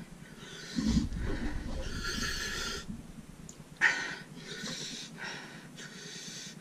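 A man breathing out hard through a wide-open mouth with his tongue stuck out, in about three long, noisy huffs. It is the panting of a mouth burning from hot habanero pepper powder.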